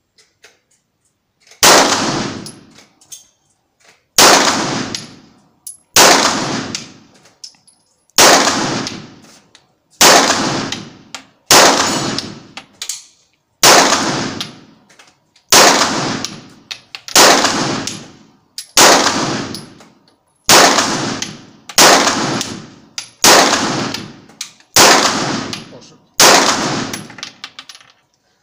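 Fifteen slow, aimed shots from a Springfield XD(M) 9 mm pistol, about one every one and a half to two seconds. Each shot has a ringing echo that dies away, as heard in an indoor shooting range.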